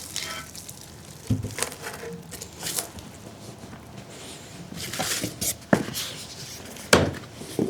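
Handling of packed photo booth parts: plastic and foam packaging rustling, with a few knocks and clicks as pieces are moved.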